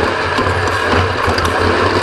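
Off-road race vehicle running hard, its engine a steady low drone under a constant rattle and clatter of loose parts over rough ground.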